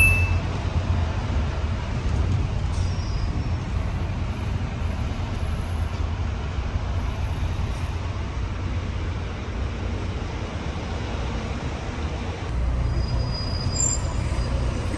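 Steady low rumble of a moving vehicle, a little louder about twelve seconds in.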